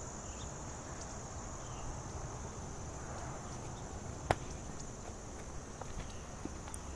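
Steady high-pitched chorus of summer insects in the background, with one sharp click about four seconds in and a few fainter ticks.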